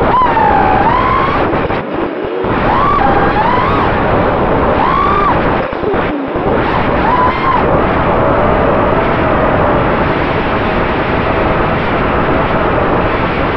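A racing quadcopter's four brushless motors (Cobra CP 2207 2600 KV, HQ 5045 three-blade props) whine, their pitch sweeping up and down with throttle, over a loud rush of prop wash and air. Short throttle chops come around two and six seconds in. From about halfway the whine holds steadier.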